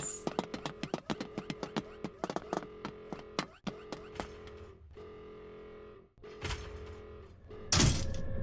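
A quick, irregular run of sharp clicks over a steady electronic hum, then a loud burst about eight seconds in, after which a different steady hum carries on.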